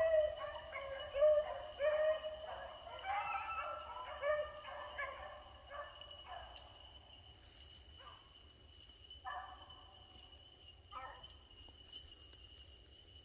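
A pack of beagles baying as they run a rabbit's trail, several hounds overlapping at first, thinning to a few single long bays in the second half. A steady high insect drone runs underneath.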